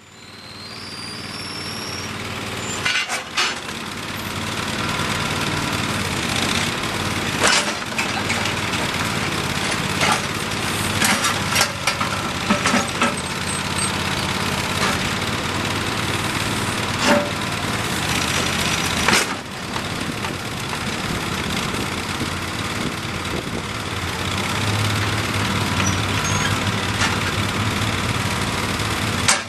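Terramite T5C backhoe loader's engine running steadily, with scattered sharp knocks and clanks from the machine working. The engine noise swells up over the first couple of seconds.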